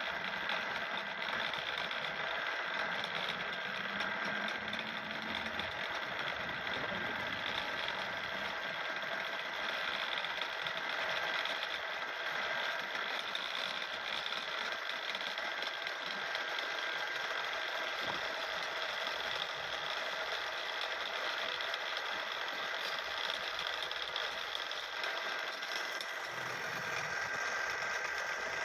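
Wood-turning lathe running steadily, with a steady high hum holding through.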